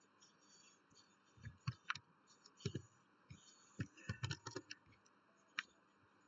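Computer keyboard and mouse clicking: faint, irregular short clicks in small clusters, then a single click about five and a half seconds in.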